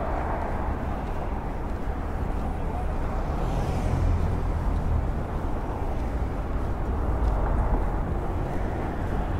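City street ambience: a steady low rumble of road traffic, with a brief higher hiss about four seconds in.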